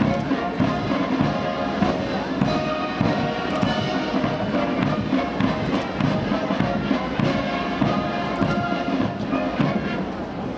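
Military brass band playing.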